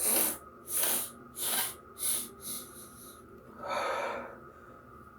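A man's nose and breath reacting to sniffed black pepper. Five or six sharp, hissing sniffs or snorts come in quick succession, each weaker than the last, then a longer breathy sound about four seconds in.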